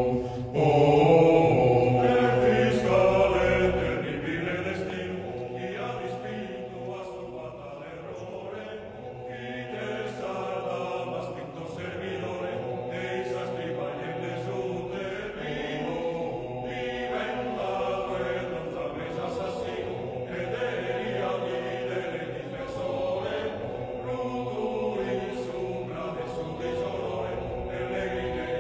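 Sardinian choir singing in several parts: voices holding slow, sustained chords over a low held bass note. It gets a little softer about four seconds in.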